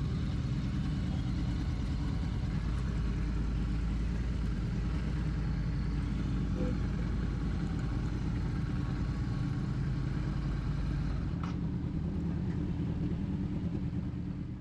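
Royal Enfield Classic 650's parallel-twin engine running steadily at low speed, heard from the rider's seat. The deepest part of the rumble drops off about eleven seconds in.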